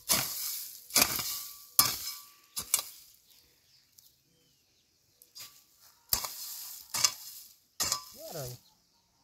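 A hoe chopping and scraping into hard, dry soil while weeds are cleared, about one stroke a second. There is a pause of a couple of seconds in the middle before the strokes start again.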